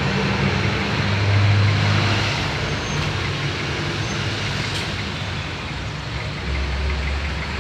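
Street traffic: a heavy truck's engine running as it drives through the crossing, louder about a second in, with cars passing.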